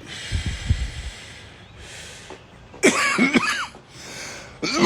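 Breathy noise close to the microphone with low thuds, then a person's voice briefly about three seconds in.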